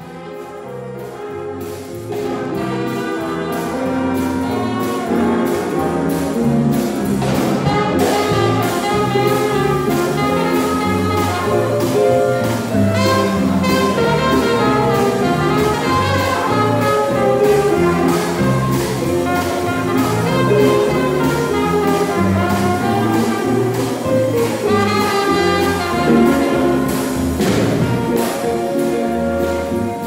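Traditional jazz band playing: trumpet, trombone and saxophone over a rhythm section of keyboard, double bass and drums with a steady beat. The music fades in over the first couple of seconds.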